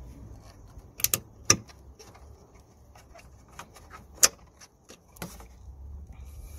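Pliers clicking and clacking against the metal hose clamp on an inline fuel filter's pipe as the clamp is worked loose: scattered sharp clicks, a few about a second in and the loudest just past four seconds, over a faint low hum.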